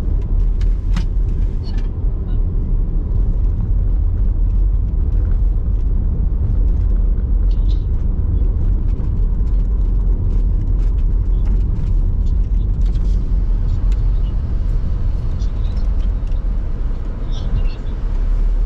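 Steady low rumble of a car's engine and tyres heard from inside the cabin while driving slowly, with a few faint clicks scattered through it.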